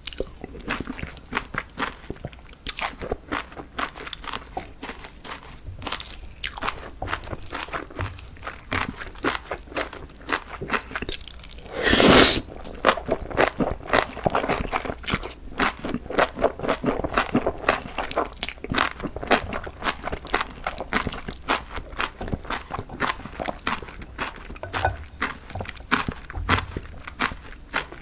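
A person chewing and biting crunchy food close to the microphone: dense, irregular crunches throughout. There is one brief, louder burst of noise about twelve seconds in.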